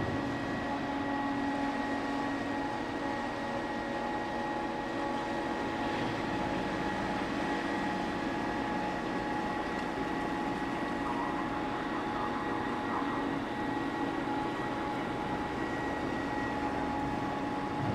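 Steady machinery drone from the passenger ro-ro ferry Suzuran close alongside as she berths: engine-room and ventilation fans humming, with several steady whining tones over a noisy rumble.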